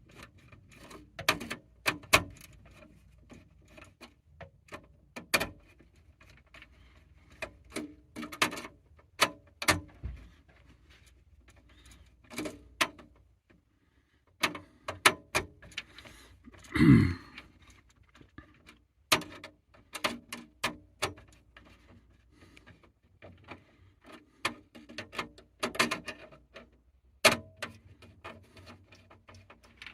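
Irregular small clicks and taps of a screwdriver and small metal parts at an alarm panel's terminal strip, as the terminal screws are loosened and zone resistors fitted. About halfway through there is one louder, short sound that drops in pitch.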